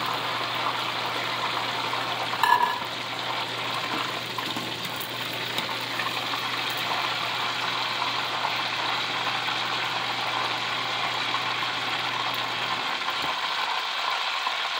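Hot oil sizzling steadily around plantain chunks in their first fry, before they are smashed and fried again. A single sharp metal knock about two and a half seconds in, and a low hum under it that cuts off near the end.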